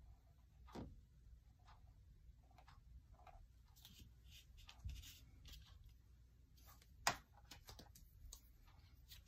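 Very quiet: faint scratching of a fine-tip drawing pen on watercolour paper, with scattered light clicks. The sharpest click comes about seven seconds in.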